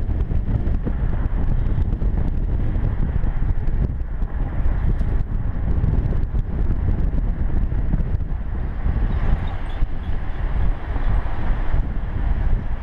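Wind buffeting the microphone of a camera held out of a moving car's window, a loud, gusty low rumble over the car's road noise.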